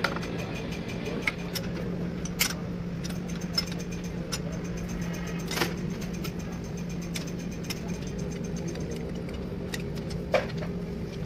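A motor running steadily in the workshop, a low even hum, with a few sharp metallic clinks of hand tools and a steel bar against the crankshaft of a stripped diesel engine block.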